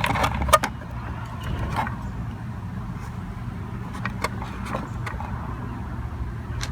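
Plastic clicks and knocks as a Jeep Cherokee tail light assembly is lifted and worked free of its retaining clip. The clicks come in a cluster right at the start and a few more around four seconds in, over a steady low hum.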